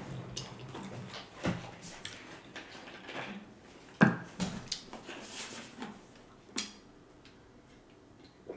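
Close-miked chewing and mouth sounds of eating, with a sharp knock about four seconds in and a click a couple of seconds later as a large plastic water bottle is handled, then faint swallowing near the end as he drinks.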